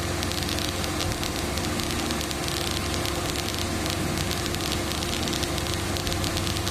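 Steady in-cabin hum of a vehicle's running engine and heater blower, with a fine crackling patter of rain on the body.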